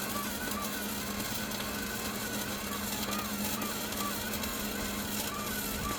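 Steady mechanical hum under a constant hiss, with faint wavering higher tones coming and going.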